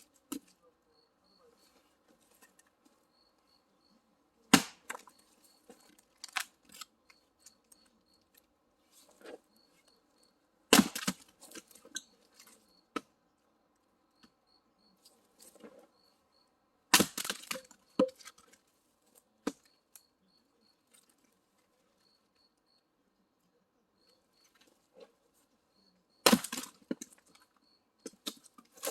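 Firewood being split by hand: four heavy cracking strikes about six seconds apart, each followed by a few lighter wooden knocks.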